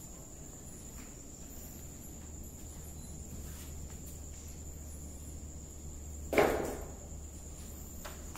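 Night insects keep up a steady high-pitched trill over a low hum. About six seconds in comes a single loud thump that dies away within half a second.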